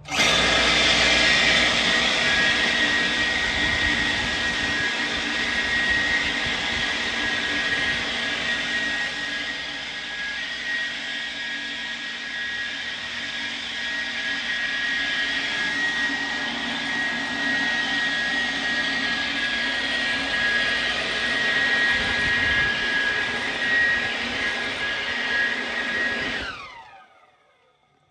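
Electric motor of a high-shear mixer disperser starting abruptly and running at high speed with its shaft in a bucket of water: a steady high-pitched whine. About 26 seconds in, it winds down, the whine falling in pitch as it stops.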